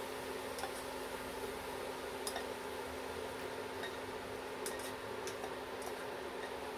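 Scattered light clicks and clinks in a frying pan as vegan chicken bites go in and are moved about with a utensil, over a steady hum.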